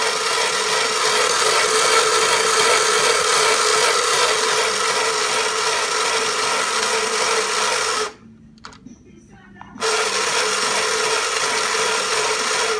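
Antique Sears children's toy sewing machine running steadily. It stops about eight seconds in, then starts up again under two seconds later.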